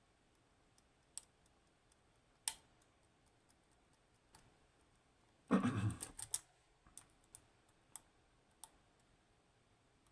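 Sparse, faint metallic clicks of a lock pick and tension tool working the pin stack of an ASSA 600 pin-tumbler lock, with a brief louder clatter a little past halfway.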